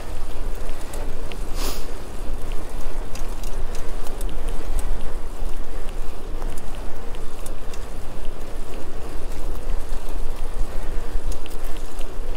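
Wind buffeting a bike-mounted GoPro's microphone while cycling: a steady, heavy rumble with tyre and road noise and scattered small clicks and rattles. There is a sharper click a little under two seconds in.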